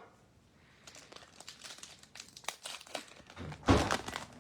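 Basketball trading cards being flipped and slid past one another by hand: a run of light rustles and clicks starting about a second in, with the loudest handling noise a little before the end.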